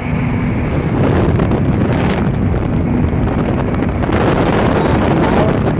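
Strong wind from a high-speed fan, blasting steadily across the microphone as loud, rumbling buffeting inside a wind tube.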